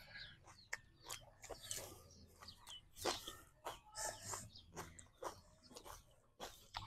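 Faint chewing and lip-smacking of people eating grilled beef, heard as a scattering of short, soft clicks and smacks.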